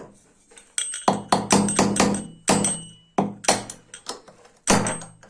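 Hammer blows knocking the old ball bearing out of a ceiling fan's housing: about a dozen sharp metal strikes in quick runs, some leaving a brief ringing.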